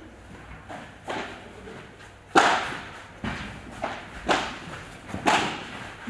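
Padel rally: the ball is struck by the rackets and bounces off the court and walls, giving about seven sharp pops at an irregular pace, the loudest about two and a half seconds in. Each pop rings briefly in a large, echoing hall.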